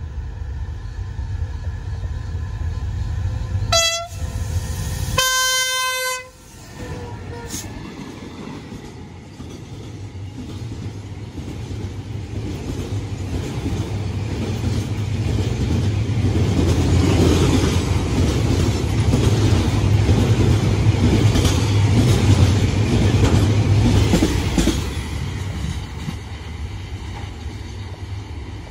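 CSR SDA3 diesel-electric locomotive sounds its horn twice, a short blast about four seconds in and a longer one right after. The freight train of gas tank wagons then passes with a rumble and wheels clacking over the rail joints, loudest in the middle and fading near the end.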